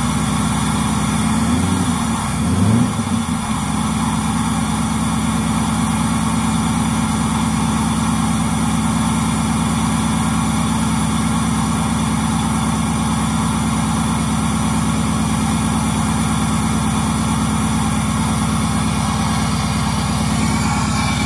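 Freshly started GM LS-series V8 running with the hood open: its revs waver for the first few seconds, with a short rise about two and a half seconds in, then it settles to a steady idle.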